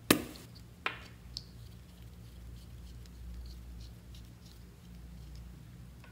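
Plastic glue stick being handled: a sharp click just after the start, a second click under a second later and a smaller one after that, then faint ticking as the stick is turned and twisted up.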